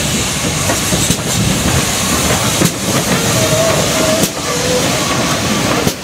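GWR 3700 'City' class 4-4-0 steam locomotive No. 3717, City of Truro, running past with a coach: steady rumble and steam hiss, with the wheels knocking over rail joints a few times.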